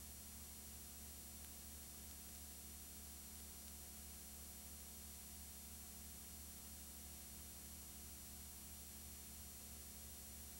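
Near silence: a faint, steady electrical hum and hiss, with no other sound.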